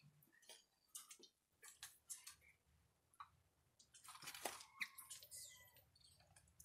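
Faint scratching, tapping and rustling of kittens' claws and paws on a cardboard box, with a busier, louder scuffle about four seconds in.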